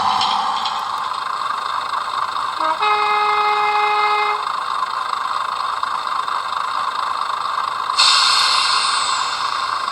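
Digital sound decoder playing a Class 121 diesel railcar's running sound through the model's small speaker, with one horn blast about 3 s in lasting about a second and a half. About 8 s in, the running sound gets louder and brighter.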